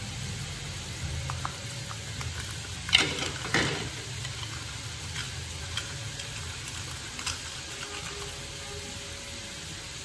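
Chicken pieces sizzling in butter in a small pan, over a steady low hum, with two sharp knocks about three seconds in and a few small clicks.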